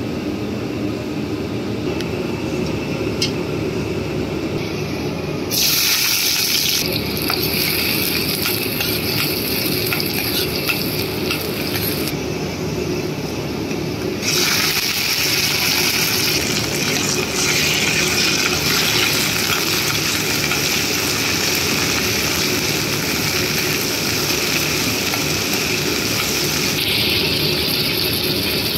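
Hot oil sizzling in a pan with pieces of chicken frying in it. The sizzle is steady and gets louder in steps, about five seconds in and again about halfway through.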